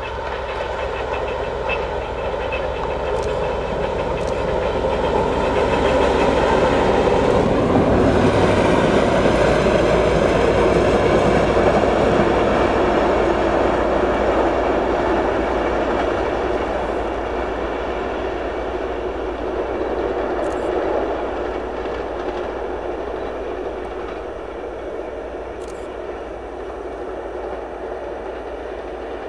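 2M62U twin-section diesel locomotive running light, its two-stroke diesel engines running as it approaches, passes and moves away. The sound builds to its loudest about eight to twelve seconds in, the pitch drops as it goes by, then it slowly fades.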